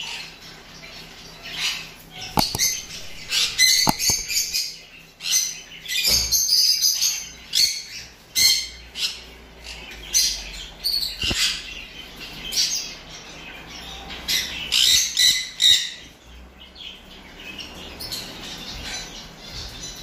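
Amazon parrot giving a string of short squawks and calls in bunches, with brief pauses between them.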